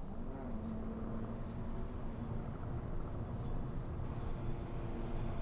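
Insects chirring in one continuous high-pitched drone, over a low, even background noise.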